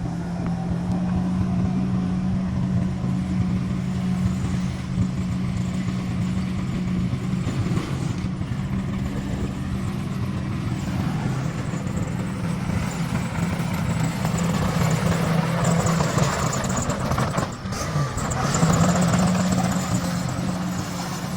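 Bulldozer's diesel engine running steadily with a low drone, dipping briefly about four seconds before the end and then picking up again.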